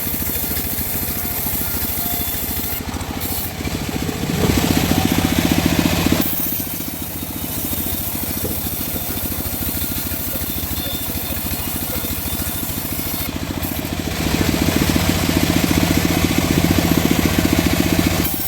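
Homemade bandsaw sawmill running and sawing mahogany, a steady machine sound with a fine rapid pulse. It gets louder for a couple of seconds about four seconds in, and again from about fourteen seconds in until near the end.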